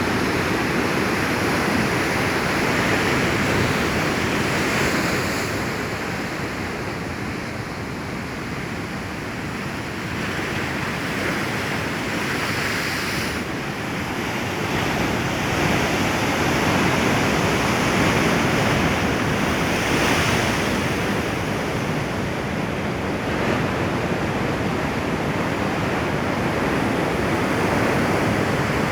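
Ocean waves breaking on a beach, a steady surf that swells and eases every several seconds, with some wind buffeting the microphone.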